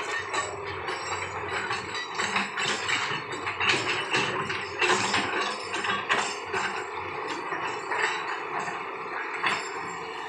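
Sany excavator working, with a dense run of irregular metallic clanks and rattles over a steady mechanical hum.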